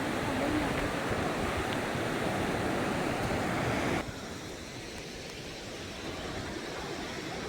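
Steady rushing of flowing water, which drops noticeably quieter about four seconds in.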